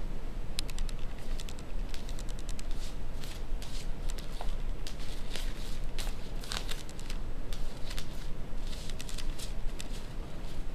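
Rustling and crinkling with many short, sharp clicks at an uneven pace, over a steady low hum.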